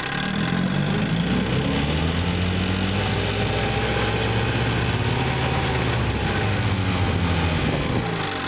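1961 Johnson 5.5 hp two-stroke outboard motor running in reverse gear. Its speed rises a little in the first second, holds steady, then drops back near the end.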